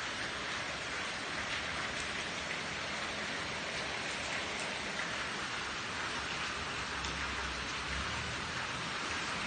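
Steady rain falling on wet concrete, an even hiss with faint scattered drip ticks.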